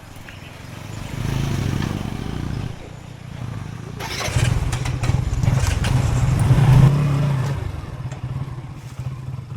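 Bajaj CT100 ES motorcycle's small single-cylinder four-stroke engine running and pulling, swelling twice in level, with the pitch rising a little during the second, longer surge.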